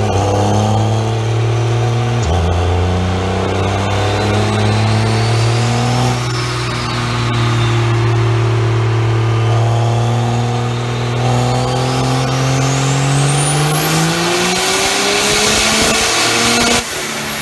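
Diesel engine of a Dodge Ram pickup under load on a chassis dyno, running loud and steady. Its pitch drops once about two seconds in, then climbs slowly through the pull as black smoke pours from the stack. A high whine rises steeply over the last few seconds before the engine eases off just before the end.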